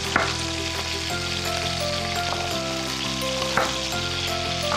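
Chicken sizzling steadily in hot oil in a pan, with two sharp chef's-knife chops on a wooden cutting board, one just after the start and one about three and a half seconds in. A background melody of held notes plays throughout.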